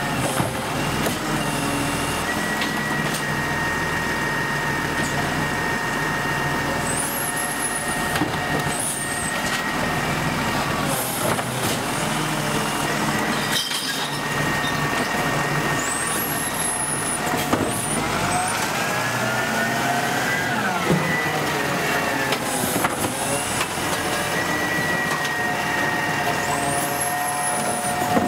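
Volvo FL250 side-loader garbage truck's diesel engine running, with a steady whine from the hydraulic lift arm as it picks up and tips a wheelie bin. The engine revs rise and fall over the middle of the stretch as the arm cycles.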